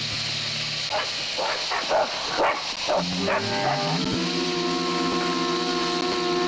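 A dog barking in a quick series of about six short barks. A held music chord then takes over and sustains.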